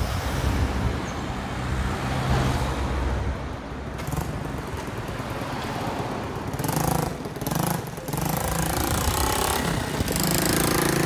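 Street traffic: a motor vehicle's engine running close by with a steady low hum, over general street noise.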